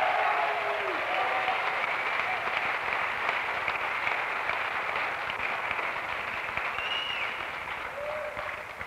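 Crowd applauding and cheering after a line of a speech, a few voices calling out, slowly dying down toward the end.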